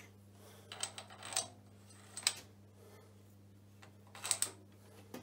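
Steel horizontal milling arbor being handled on the milling machine, giving light metallic clicks and taps in three short clusters, over a steady low hum.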